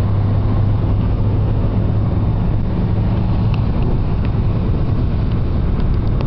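Steady cabin noise of a car at motorway speed, around 180 km/h, heard from inside: a low engine drone with tyre and wind noise and a few faint ticks.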